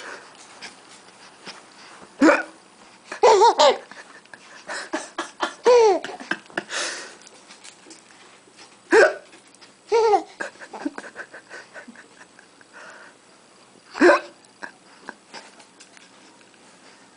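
An adult making fake hiccups, a short sharp "hic" every few seconds, and a baby laughing in bursts in between.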